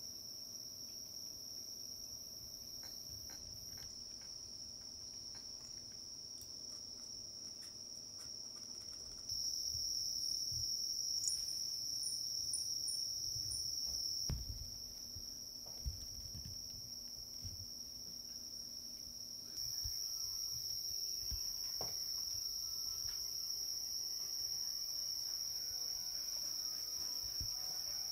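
Steady high-pitched insect trill, unbroken throughout, its loudness stepping up and down abruptly a few times. A few faint soft knocks sound underneath.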